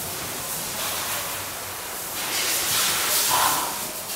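A steady rushing hiss, like air or noise, that swells louder from about two seconds in.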